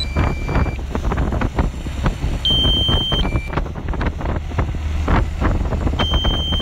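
The outboard motor of a launch following a rowing race runs with a steady low rumble while wind buffets the microphone. A two-note electronic beep, high then lower, repeats about every three and a half seconds.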